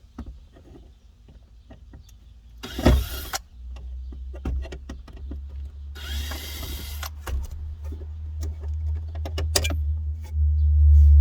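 Hard plastic center console being worked loose and pulled out of the Jeep's floor, with scattered clicks and knocks and two longer scrapes about three and six seconds in. A heavy low rumble runs underneath from about three seconds on and grows louder near the end.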